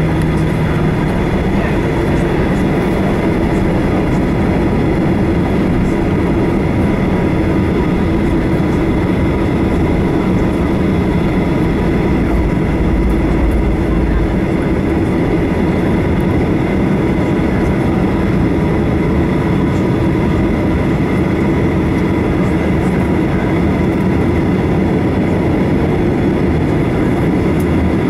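Cabin noise inside a Boeing 737-800 taxiing, its CFM56-7B engines at low taxi thrust: a steady rumble with a few steady tones over it.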